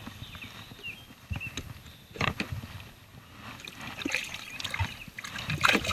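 Hard plastic cooler lid being lifted and handled, with several sharp knocks and rattles. The loudest knock comes near the end.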